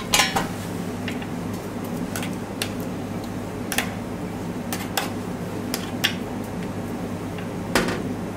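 Scattered light clicks and taps of a metal spoon against a square stainless-steel ring mould and a ceramic plate as sweet potato mash is packed into the mould, over a steady low hum.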